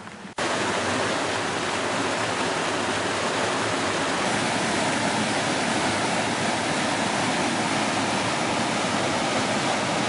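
Otodome Falls: white water plunging over rocks into a pool, a loud, steady rush that starts suddenly about half a second in.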